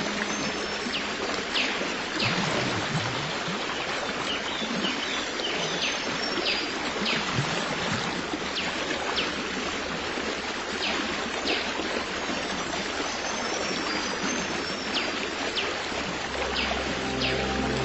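A stream of water flowing steadily, with birds giving short, high, falling chirps about once a second.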